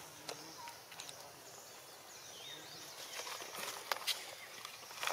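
Outdoor woodland ambience: a steady high-pitched hiss with scattered light clicks and rustles, the sharpest clicks near the four-second mark, and a faint falling whistle a little after two seconds in.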